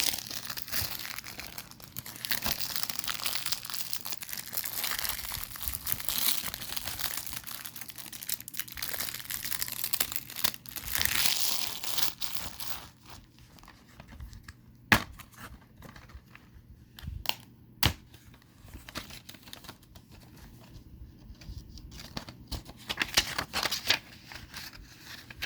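Plastic shrink-wrap being torn and crinkled off a DVD case, a dense crackling that goes on for about twelve seconds. Then comes a quieter stretch with a few sharp clicks as the case is handled, and a short burst of crinkling near the end.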